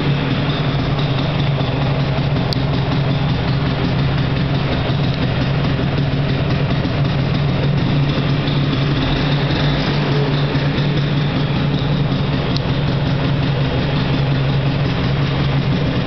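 Vespa PX scooter's two-stroke single-cylinder engine idling steadily.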